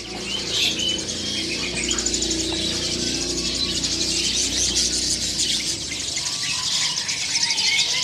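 A chorus of many caged songbirds chirping and trilling at once, a dense, unbroken wash of high chirps and rapid trills. A low steady hum runs underneath and stops about six seconds in.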